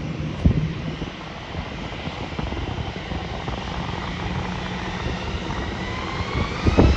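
Airbus A321 jet engines spooling up for takeoff: a steady jet rumble with a whine that starts rising in pitch about two-thirds of the way in as thrust builds. Wind gusts on the microphone.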